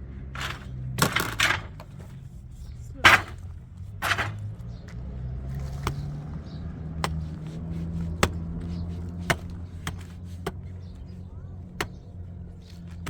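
Hand tools at tile and mortar work: a few short scrapes, then sharp taps about once a second, over a steady low hum.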